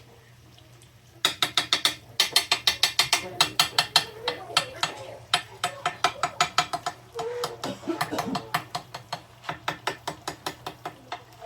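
Rapid ratchet-like mechanical clicking, about seven clicks a second, in bursts starting about a second in.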